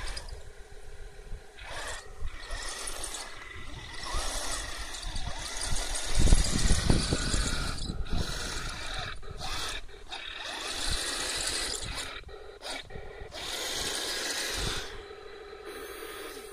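Heng Long 1/16 M41 Walker Bulldog RC tank driving: its electric drive motors and gearbox whine, its metal tracks clatter over dirt, and its sound unit plays a simulated tank-engine rumble. Near the end the tank stops and a steady engine-idle hum plays on.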